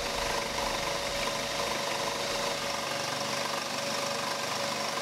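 A 16-inch Shop Fox scroll saw running steadily, its reciprocating blade cutting a walnut letter blank fed by hand, with a constant tone over the cutting noise.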